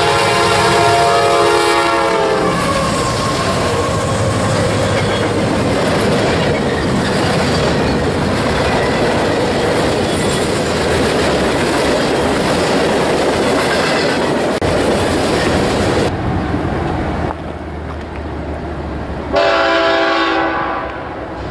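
A CSX freight train's multi-note locomotive horn sounds as the lead units pass, the chord dropping in pitch about two seconds in. It gives way to the steady rumble and wheel clatter of a long string of covered hopper cars rolling by. Near the end, after a quieter moment, another locomotive horn chord sounds.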